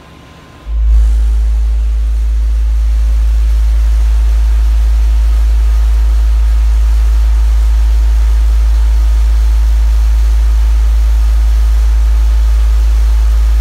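Car-audio subwoofers sealed inside a pickup truck playing one steady, very loud deep bass test tone, heard from outside the closed truck. It starts under a second in and holds evenly throughout: an SPL run at about 910 watts, reading around 151.6 dB against a 152 dB target.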